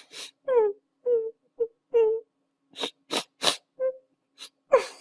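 Someone crying: a run of short whimpers, each falling in pitch, with three sharp, noisy sobbing breaths in quick succession about three seconds in.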